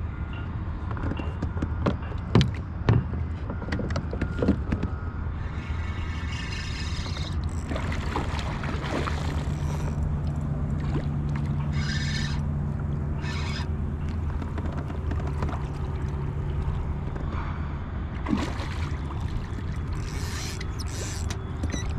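A hooked redfish fought to the side of a kayak: splashing at the surface, short whirring bursts of the reel being wound, and a few sharp knocks on the kayak, over a steady low rumble.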